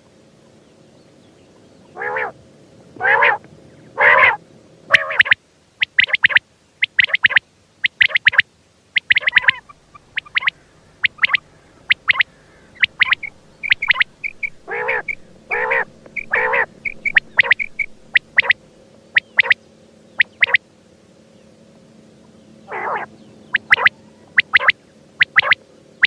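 Quail calling over and over in short, sharp notes, about one or two a second, with a few lower, fuller calls mixed in.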